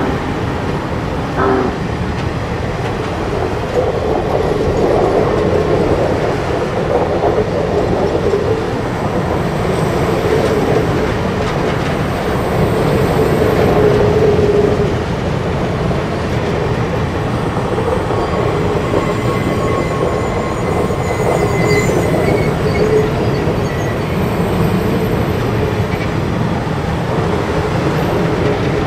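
Union Pacific passenger cars rolling past at close range, a steady loud sound of steel wheels running on the rails. Faint high squeals come from the wheels now and then in the second half.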